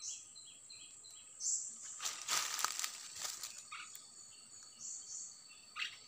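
Wild birds calling in forest, short chirps and whistled notes at several points over a steady high insect drone, with a cluster of rustling and clicking handling noises a couple of seconds in.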